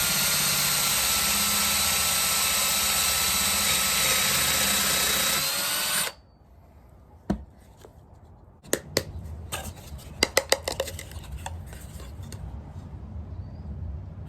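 Electric drill running steadily with a whine as it bores small drain holes through a dried gourd shell, the pitch rising slightly just before it cuts off about six seconds in. Then a handful of sharp light taps and clicks.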